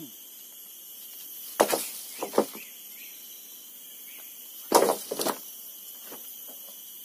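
Freshly sawn bangkirai boards knocking against each other as they are lifted and laid on a pile: a few sharp wooden knocks in two clusters, about a second and a half in and again near five seconds in. A steady high drone of forest insects runs underneath.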